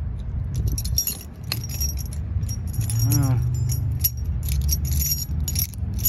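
Keys jangling on a key ring, with metal clinks, as a sillcock key on the same ring is worked onto an outdoor spigot's valve stem. A steady low hum runs underneath.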